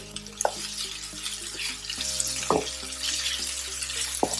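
Sliced onions and garlic-ginger paste sizzling in hot oil in a frying pan, with a few short knocks as a wooden spatula stirs them.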